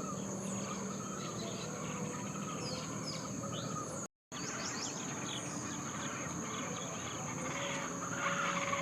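Waterside ambience of a steady, high-pitched insect drone with many quick, falling bird chirps over it. The sound cuts out completely for a moment about four seconds in.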